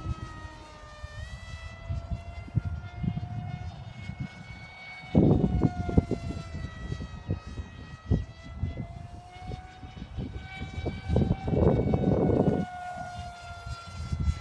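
Radio-controlled model jet flying overhead: a steady engine whine in several pitches that slowly rise and fall as it passes. Wind buffets the microphone throughout, in loud gusts about five seconds in and again around eleven to twelve seconds.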